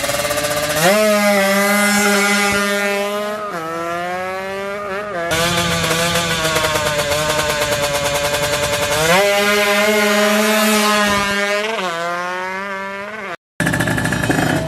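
Drag-racing motorcycle engine revved hard at the start line. The revs climb about a second in, are held high for a couple of seconds and drop, then climb and hold again a little past the middle. The sound cuts off briefly near the end.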